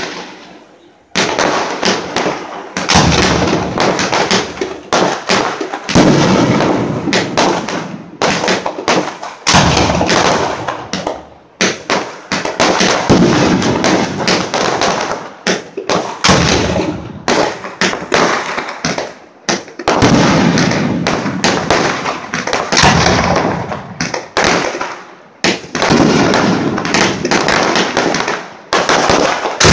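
Aerial fireworks bursting overhead in a rapid, near-continuous barrage of loud bangs, one bang at the start and then an unbroken volley from about a second in with only brief lulls.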